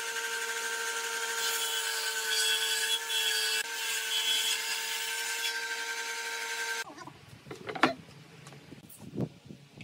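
Hitachi combination jointer-planer running as a wooden board is fed across its cutterhead: a steady motor tone under a dense rushing cutting noise. About seven seconds in it cuts off abruptly. After that come a few sharp wooden knocks as boards are set down on a workbench.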